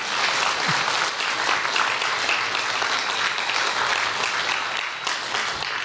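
An audience applauding: dense, steady clapping from many hands, easing off a little near the end.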